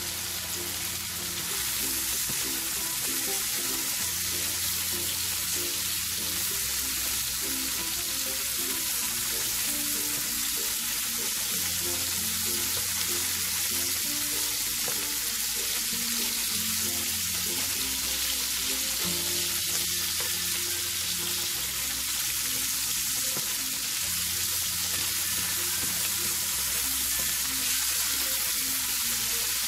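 Food sautéing in hot cooking oil in a pan, a steady sizzle that grows a little louder about a second and a half in, over background music with sustained bass notes.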